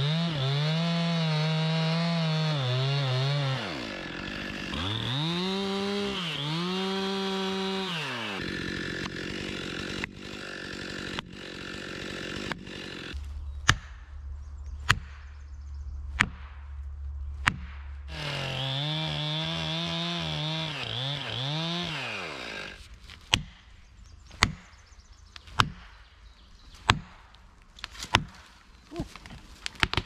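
Chainsaw running at full throttle through the back cut of a tree being felled, its pitch rising and falling with the load, then running steadier. Twice the saw is set aside and felling wedges are driven into the back cut with sharp strikes about one a second, to tip the tree.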